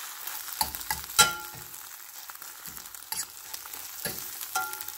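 Eggs sizzling in butter in a stainless steel skillet while a metal spoon stirs and scrapes them, knocking against the pan several times. Some knocks leave a short metallic ring, and the loudest comes about a second in.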